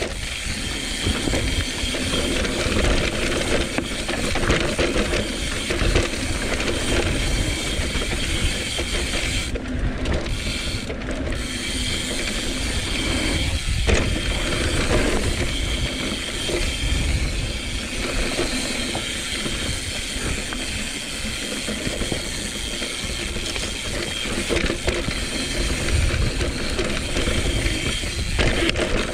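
Mountain bike ridden along dirt singletrack: the rear hub's freehub ratchet buzzing as the bike coasts, over steady tyre noise on dirt and leaves and the rattle of the bike. A constant low wind rumble runs underneath.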